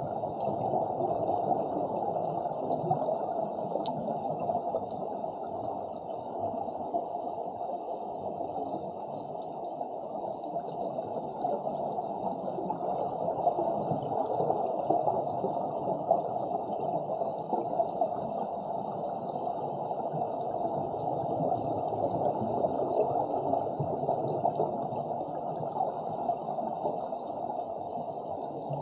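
Underwater ambience picked up by an action camera in the sea: a steady, muffled rush of water with no distinct events.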